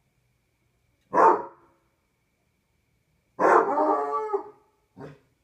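Basset hound baying: a short loud bark about a second in, then a longer drawn-out howl of about a second, then a brief, fainter bark near the end.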